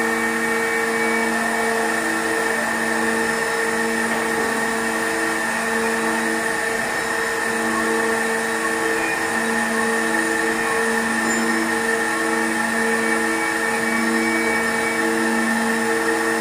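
Rock-bolting rig running with its drill feed set against the tunnel rock: a loud, steady machine drone whose tones switch back and forth in a regular cycle of about a second.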